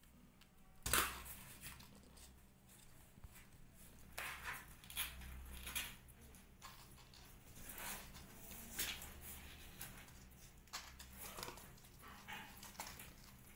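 Irregular rustling and scratching as kittens move about on a lap, with a sharp scrape about a second in.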